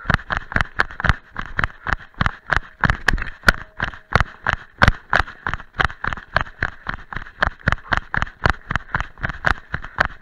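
Running footfalls of a trail runner descending fast on a dry, leaf-covered dirt path, in a quick, even rhythm of about three to four steps a second. Each stride lands as a sharp knock through the chest-harness-mounted camera.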